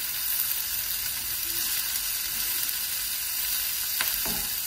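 Sliced leeks and onion sautéing in olive oil in a nonstick frying pan, with a steady sizzle as a silicone spatula turns them. There is a single light tap about four seconds in.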